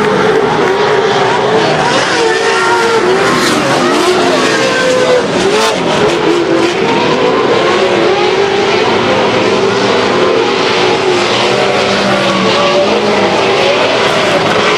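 Several off-road racing vehicles' engines running hard together, their pitches rising and falling as they accelerate and shift.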